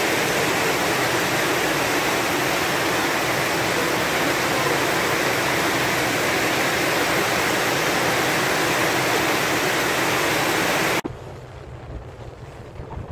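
Steady loud rushing noise of wind and water, with no distinct tones. It cuts off abruptly about 11 seconds in, leaving a quieter low wind rumble on the microphone.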